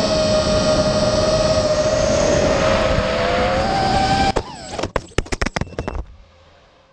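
FPV quadcopter's electric motors and propellers whining steadily, the pitch climbing a little toward four seconds in. The whine then breaks off into a run of sharp clatters and knocks with brief falling whines as the quad crashes and tumbles.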